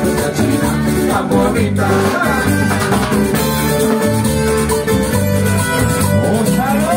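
A live carranga band playing an instrumental passage: strummed acoustic guitars and other plucked strings over electric bass and drums, with a metal guacharaca scraper keeping the beat.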